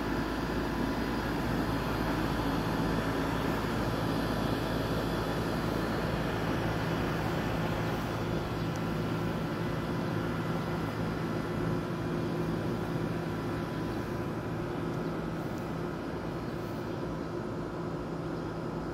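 A steady mechanical drone from a motor running at an even speed, with a constant low hum and a hiss, unchanging throughout.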